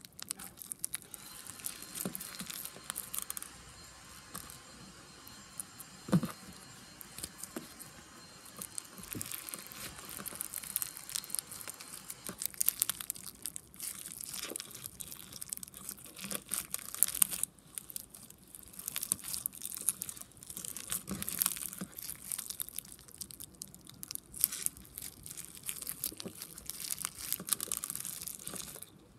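Hands squishing, stretching and folding blue slime packed with clear beads, mixing two slimes together: a continuous run of sticky crackles, clicks and small pops, with a few louder pops now and then.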